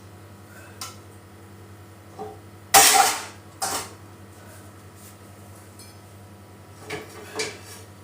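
Kitchenware clattering: dishes and pans knocked and set down. A loud clatter comes about three seconds in, followed by a second one, with lighter knocks near the start and twice near the end.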